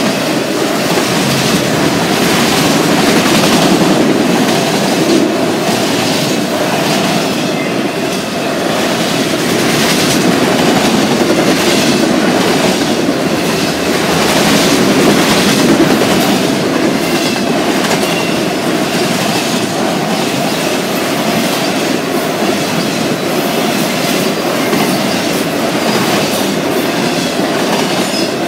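Loud, steady rumble of enclosed autorack freight cars rolling past, with a rhythmic clatter of steel wheels over the rail joints.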